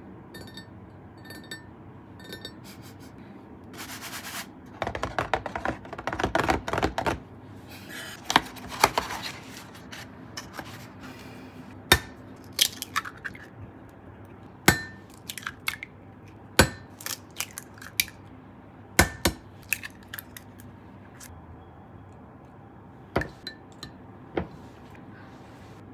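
Dishes and kitchen utensils being handled: sharp separate clinks and taps, with a few seconds of denser rustling and scraping about five seconds in.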